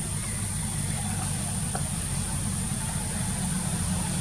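A steady low rumble like an idling engine, with a constant high-pitched whine above it.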